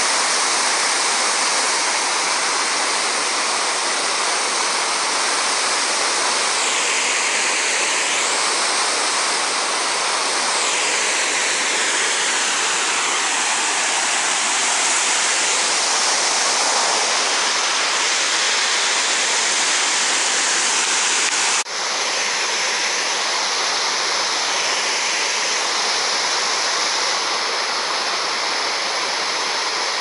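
Small waterfall on a woodland stream running high with spring snowmelt: a steady, loud rush of white water cascading over rock ledges. A short click about two-thirds of the way through.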